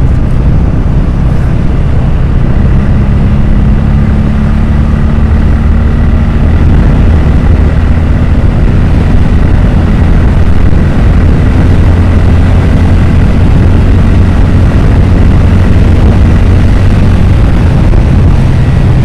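Motorcycle engine running steadily at cruising speed on the open road, with strong wind rushing over the rider's microphone.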